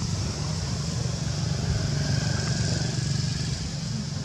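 Steady low rumble of an engine running, with a constant high hiss over it.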